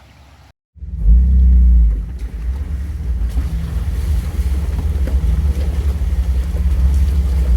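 Jeep TJ driving along a rough trail, a loud steady low rumble of engine and drivetrain picked up inside the vehicle; it starts abruptly about half a second in and is loudest for the first second.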